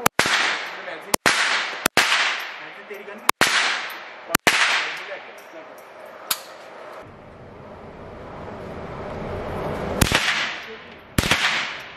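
Pistol shots fired one at a time in an indoor shooting range, each sharp crack followed by a long echoing tail. Five shots come in the first five seconds, a fainter one about six seconds in, and two more near the end, with a low rumble building in the gap between.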